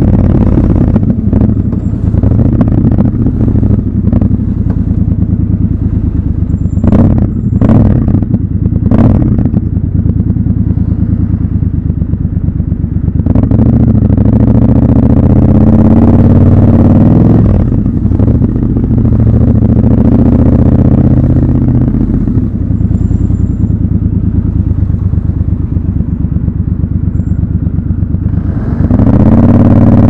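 Triumph Scrambler 1200 XC's 1200 cc parallel-twin engine running at low revs while the bike creeps through slow traffic. It picks up and drops back briefly about halfway through and revs up to accelerate near the end. Three short sharp clicks come about seven to nine seconds in.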